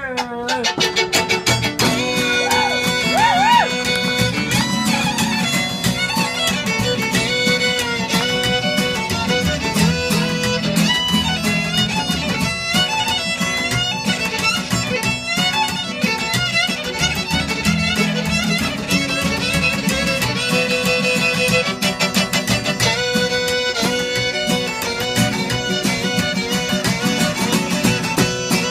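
Bluegrass string band playing an instrumental break, the fiddle leading the melody over strummed acoustic guitar, mandolin and upright bass.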